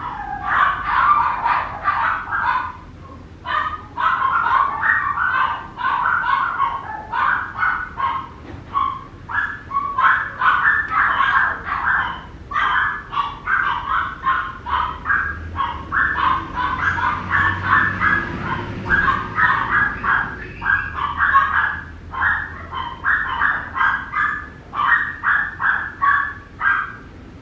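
Papillon puppy yelping and whining: short, high-pitched cries several a second, with hardly a pause.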